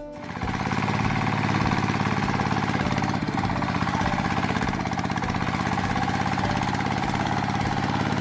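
A small engine or motor starts up about half a second in and runs steadily, with a rapid regular pulsing.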